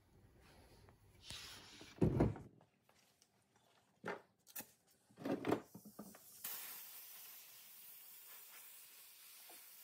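Tools and metal brake-caliper parts knocking and clattering on a workbench, with the loudest knocks about two seconds in and a few more around four to five and a half seconds. From about six and a half seconds a steady faint hiss sets in.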